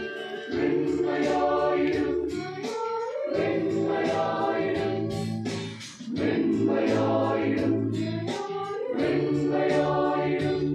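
Men's choir singing a Malayalam Christian hymn in parts, a cappella, holding long chords phrase by phrase with short breaks between phrases, the deepest just past halfway.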